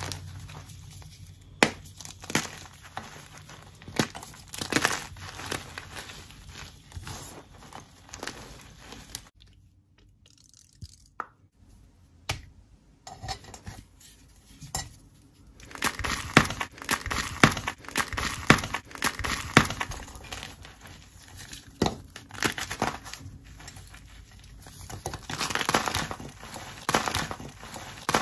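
Hands crushing and crumbling blocks of gym chalk, first one coated in dried body mask, then one sandwiched with dried yellow paint: dry crunching, crackling and sharp snaps as the blocks break into powdery chunks. It goes almost quiet for a few seconds about a third of the way in, then the crunching returns, densest and loudest in the second half.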